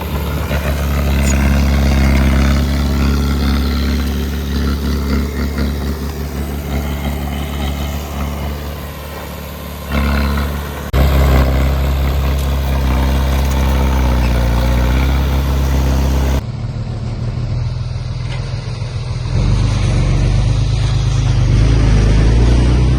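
Diesel engines of heavy earthmoving machinery running steadily, heard across several spliced clips that cut abruptly about ten, eleven and sixteen seconds in.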